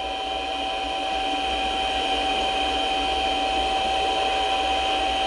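Mini lathe running, its motor and drive giving a steady two-tone whine over a hiss, while a spring-mounted form tool keeps taking a light cut on a 1018 steel rod with the cross feed untouched. The tool cuts on its own because of spring in the holder or the setup. The sound grows slightly louder over the first couple of seconds.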